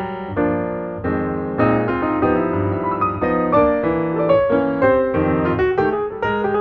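Background piano music: a run of struck notes over held chords.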